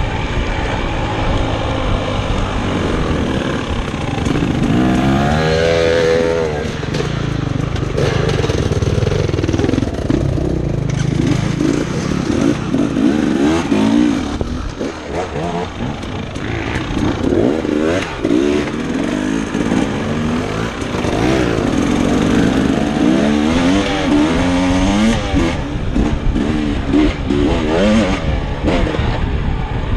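Dirt bike engine running under way, its pitch rising and falling again and again as the rider opens and closes the throttle and shifts on a trail.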